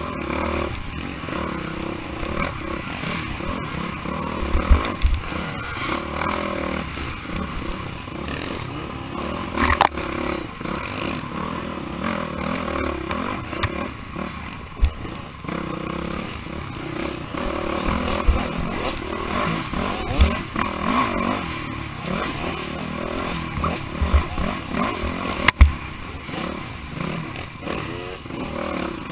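Off-road dirt bike engine revving up and easing off over rough trail, with rattling from the bike and several sharp knocks as it hits bumps, the loudest about 25 seconds in.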